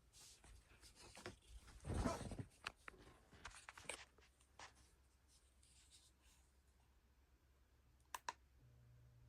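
Faint scattered clicks and rustles, with a louder rustle about two seconds in and two sharp clicks near the end, after which a low steady hum begins.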